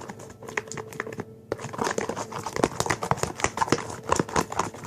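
Spoon working a sticky honey, salt and dish-detergent slime mixture in a bowl: irregular clicks and crackling smacks, sparse at first and much busier after about a second and a half.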